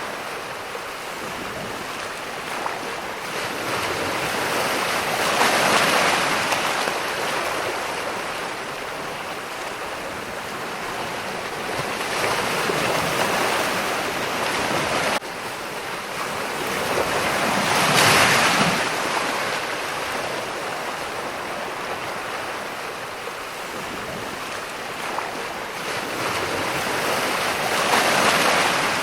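Ocean surf: a continuous wash of waves, swelling as a wave breaks about every five to ten seconds and then easing back.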